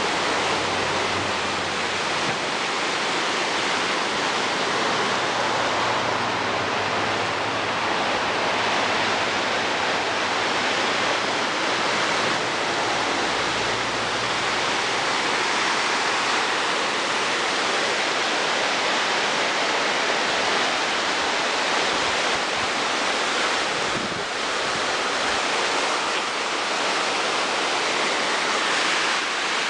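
Steady roar of rushing floodwater from a river or cascade swollen by a tropical storm.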